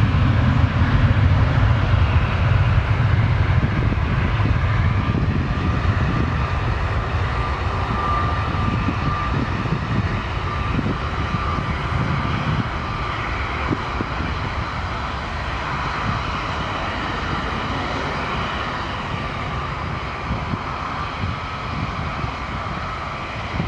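Twin turbofan engines of an Embraer E-Jet running on the runway: a steady low rumble with a faint thin whine, slowly fading as the jet rolls away.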